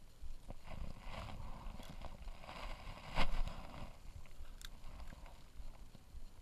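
A spinning rod being cast: a brief swish about three seconds in, the loudest sound, with rustling handling noise before it and a single sharp click about a second later.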